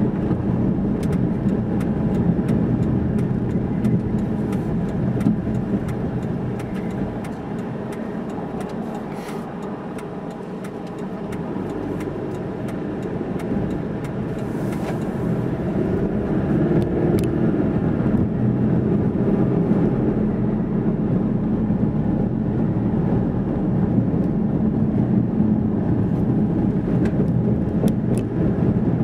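Car engine and road noise heard from inside the cabin during a slow drive. It dies down for a few seconds about a third of the way in, then picks up again.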